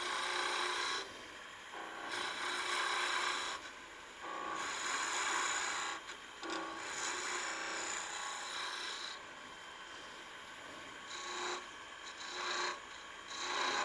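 Skew chisel making repeated peeling cuts into a spindle spinning on a wood lathe: a dry hiss of shavings coming off in passes of one to two seconds with short breaks between, lighter and shorter near the end.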